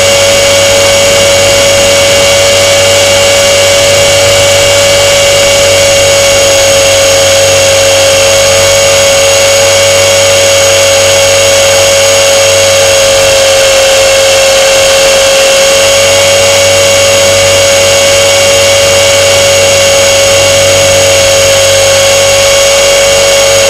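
Very loud, steady high whine of a model aircraft's motor and propeller heard from the onboard camera, its pitch dipping slightly about halfway through as the throttle eases.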